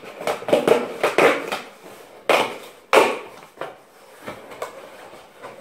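Flat cardboard mailer being handled and opened on a table: a string of short knocks, scrapes and rustles of cardboard, with two louder ones a little past halfway.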